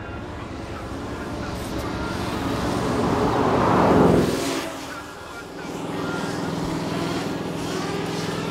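Bugatti Chiron's quad-turbo W16 passing close by: the sound builds, peaks about four seconds in as the car goes past, then drops off quickly. A steady hum from the large X-Class FPV drone chasing the car carries on after it has passed.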